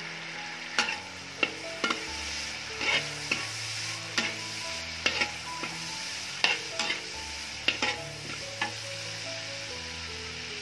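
Shrimp sizzling in hot oil in a metal wok while a metal spatula stirs them, scraping and knocking against the wok about a dozen times at irregular intervals.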